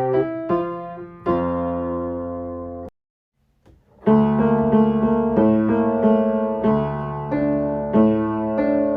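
Piano playing a simple children's-song accompaniment: a held chord cuts off sharply about three seconds in, about a second of silence follows, then the piano resumes with a steady rhythmic tune over low bass notes.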